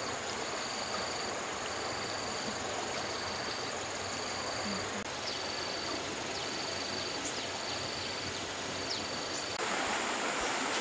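Steady rush of flowing stream water with an insect calling in even pulses, about one a second, over a high steady insect buzz. Near the end the water sound grows louder and fuller and the pulsed calls stop.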